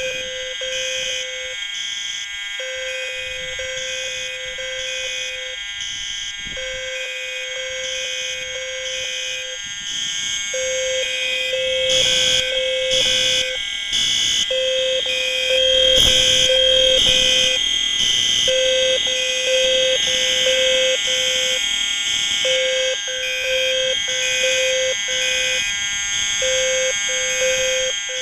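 A dozen fire alarm horns and sounders going off at once on a 12-volt supply. They include System Sensor SpectrAlert Advance and L-Series low-frequency sounders, Wheelock, Edwards Genesis and Gentex Commander 3 units, blaring together in overlapping patterns. Under the shrill mix, a low tone sounds for about three seconds and stops for about a second, over and over, and the whole din gets louder in the middle.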